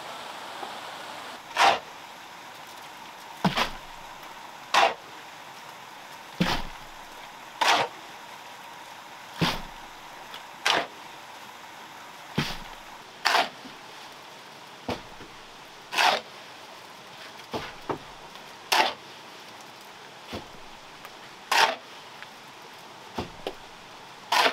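Stone-masonry work: a string of sharp knocks and clacks, about one every second and a half, over a steady background hiss.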